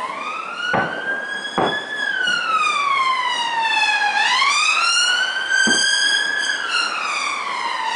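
An emergency vehicle siren wailing, its pitch slowly rising and falling about every four seconds, over three sharp firework bangs: two in the first couple of seconds and one a little past halfway.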